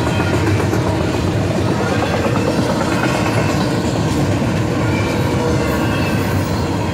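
Double-stack intermodal freight train's container well cars rolling steadily past, a loud, even noise of steel wheels running on the rails.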